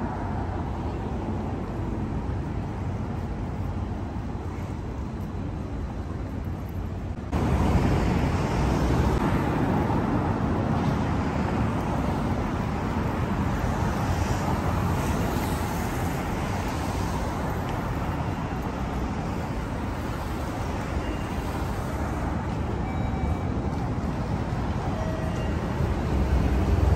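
City street ambience: steady road traffic noise from passing cars. About seven seconds in, the sound jumps abruptly louder and fuller.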